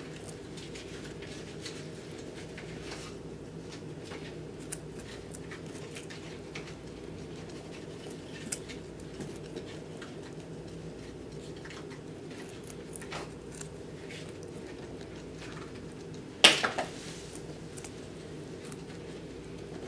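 Guinea pig chewing a carrot: small, irregular crunching clicks over a steady low hum, with one loud sharp knock late on.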